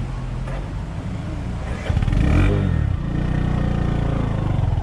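Off-road vehicle's engine running. It revs up and back down about two seconds in, then runs on steadily and a little louder.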